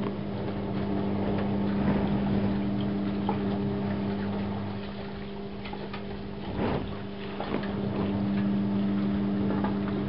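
Privileg Classic 30612 front-loading washing machine in its second spin-rinse stage: a steady motor hum with water swishing in the drum. A brief knock comes about two-thirds of the way in.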